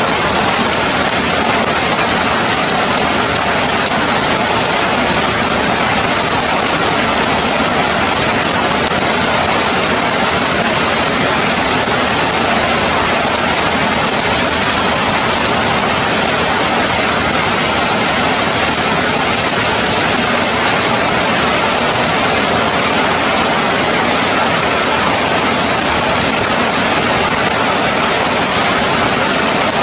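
Heavy rain falling steadily on broad forest leaves, an unbroken downpour.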